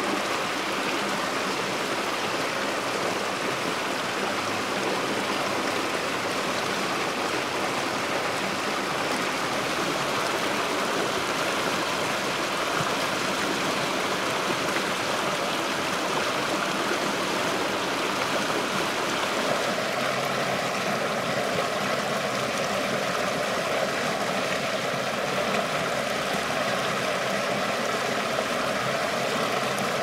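Small waterfall spilling in a sheet over a low concrete and stone ledge into a pool, a steady rushing splash of water. Its tone grows fuller about two-thirds of the way through.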